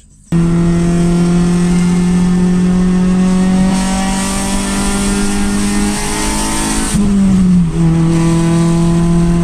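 Loud car exhaust droning steadily under way, the car's straight-piped setup with a straight pipe in place of the front resonator, which is described as super loud. Its pitch creeps slowly up, rises briefly and then drops about two-thirds through, and holds steady again.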